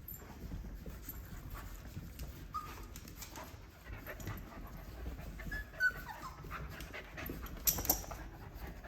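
A dog panting amid scuffling and scratching, with a few short high squeaks about six seconds in and a couple of sharp knocks near the end.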